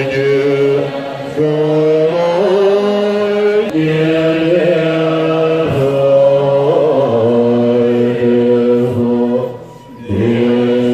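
Large assembly of Tibetan Buddhist monks chanting prayers in unison, long held notes stepping from pitch to pitch, with a short pause for breath near the end.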